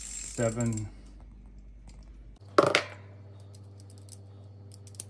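Hand tool working a tight nut off the bolt on the convection fan motor's mounting bracket: one sharp metallic knock about two and a half seconds in, then a few faint ticks.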